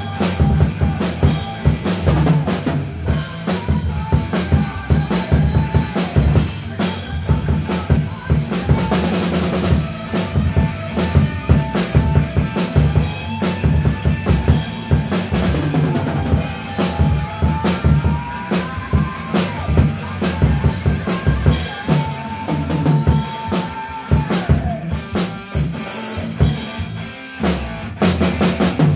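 Pearl drum kit played in a continuous groove, bass drum, snare and cymbals, along with a recorded song whose held and gliding melody line runs over the beat.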